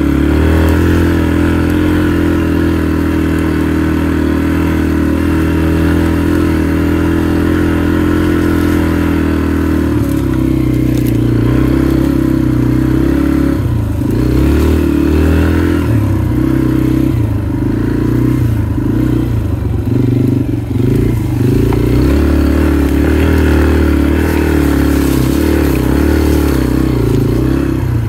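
Motorcycle engine running close to the microphone, held at a steady speed at first. From about ten seconds in it revs up and down unevenly as the throttle is worked on the trail.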